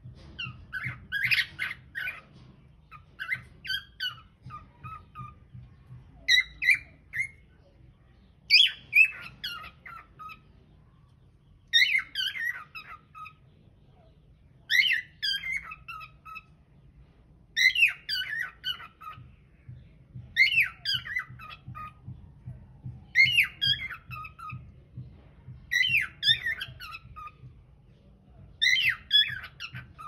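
A cockatiel singing: short chirpy, warbled phrases repeated about every three seconds.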